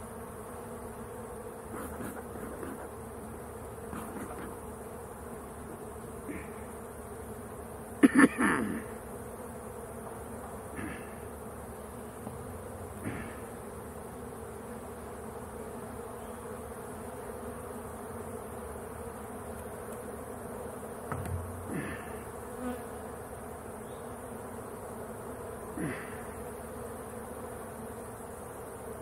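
Honeybees buzzing steadily around an opened wooden hive, with a few sharp knocks from the hive's wooden frames and boxes being handled; the loudest knocks come about eight seconds in, with smaller ones near the end.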